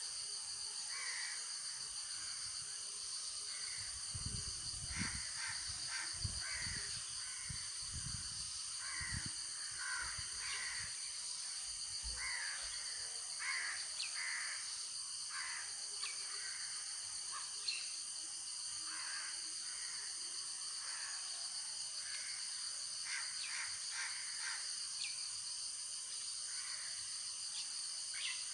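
Crows cawing again and again over a steady high-pitched drone, with a few low thuds about four to nine seconds in.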